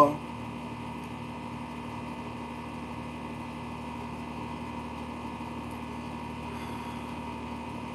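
Steady mechanical hum with a few held tones, unchanging throughout.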